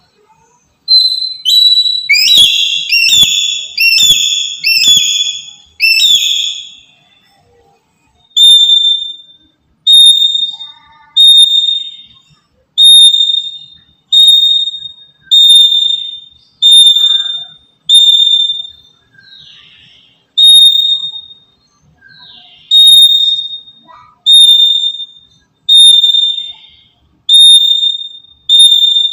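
Black-capped lory calling: a quick run of harsh, rasping screeches, then a long series of loud, shrill whistled notes repeated about once every second and a bit.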